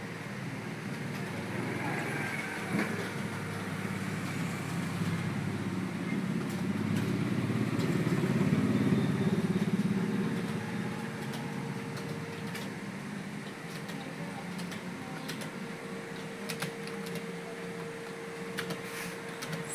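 Computer keyboard keys clicking irregularly as someone types a typing test, over a steady hum. A low vehicle engine rumble swells and fades about eight to ten seconds in and is the loudest sound.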